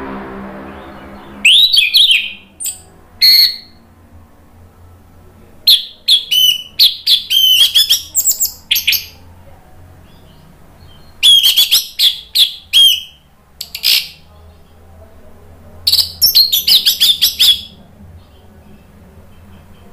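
Orange-headed thrush singing in loud bursts of rapid whistled and chattering phrases, separated by pauses of a second or more. This is the full, open song that Indonesian keepers call ngeplong.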